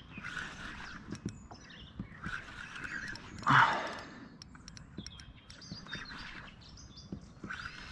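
Small birds chirping in short, high notes, with scattered faint clicks and one brief louder sound about three and a half seconds in.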